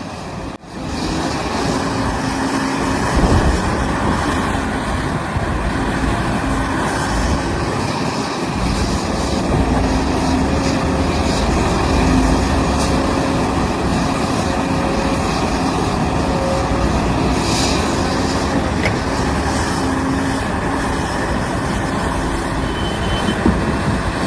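Caterpillar 395 crawler excavator's diesel engine running steadily as the machine works, a continuous heavy rumble with a steady low hum.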